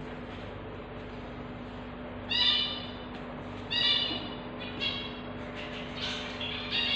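Newborn kittens mewing in high, thin squeaks, with two louder cries about two and four seconds in and several fainter ones after, over a steady low hum.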